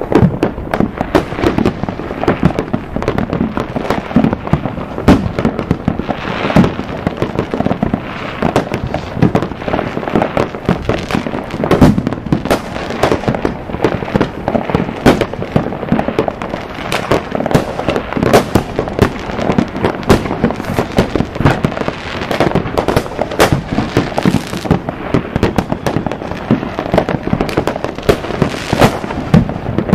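Many fireworks going off at once: a steady run of sharp bangs and crackles, several a second, without a break.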